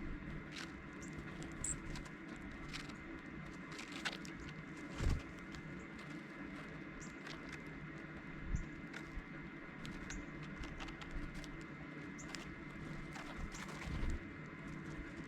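Dark-eyed juncos foraging: scattered light pecking taps and a few brief, high chip calls, over a steady faint hum. A few dull low thumps.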